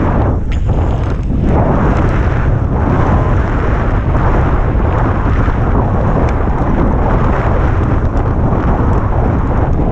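Loud, steady wind rushing over the camera microphone during a fast downhill bicycle ride in wind and rain, with tyre hiss on the wet asphalt mixed in.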